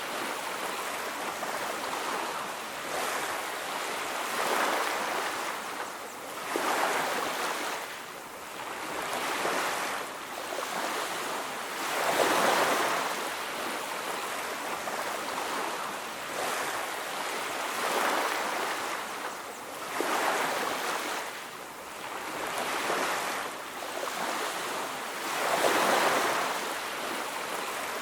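Ocean surf washing onto a beach, waves swelling and receding every two to three seconds.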